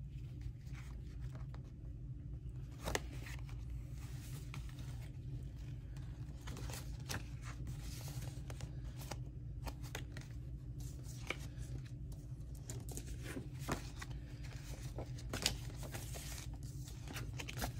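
Paper pages handled and shifted on a work surface: soft rustling with scattered light clicks and taps, over a steady low hum.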